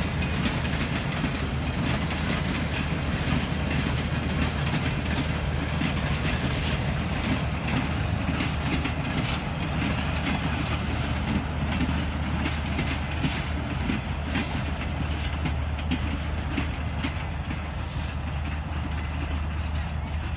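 Passenger train coaches rolling past, a steady rumble with scattered clicks of wheels over rail joints, growing a little quieter toward the end.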